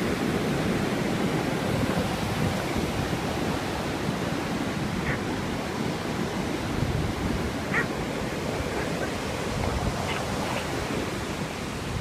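Ocean surf washing steadily onto a sand beach, with wind rumbling on the microphone.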